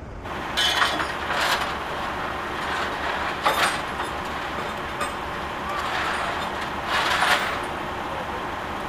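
Outdoor street ambience at a roadway: a steady rush of traffic noise, broken by a few short, sharper bursts of louder noise.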